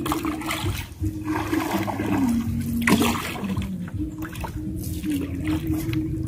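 Wooden oar dipping and pulling through river water, splashing and swishing with each stroke as a small boat is paddled.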